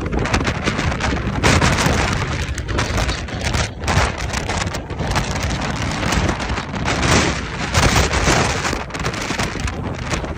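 Typhoon storm: strong wind gusting and heavy rain, with the wind buffeting the microphone in a low rumble that swells and drops.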